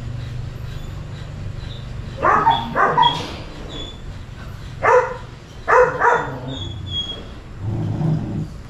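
A dog barking: three short barks about two seconds in, then three more around five to six seconds in.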